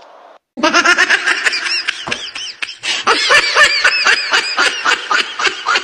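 Loud laughter in rapid, repeated high-pitched peals, starting about half a second in after a brief faint hiss.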